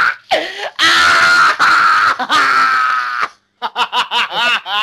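A man's loud, drawn-out scream lasting about two and a half seconds, followed by a run of short bursts of laughter near the end.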